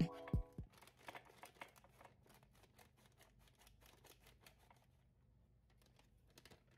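Faint crinkling of a plastic pouch and light clicks of a scoop against a glass mug as matcha powder is tipped in, after a last music note ends about half a second in; the small sounds die away after about four seconds.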